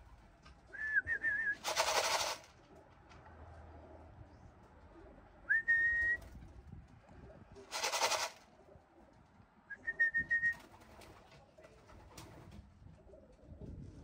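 A person whistling to call racing pigeons in to the loft: three short, high whistle notes, the first wavering, the others held steady. Two short loud bursts of noise come about 2 and 8 seconds in.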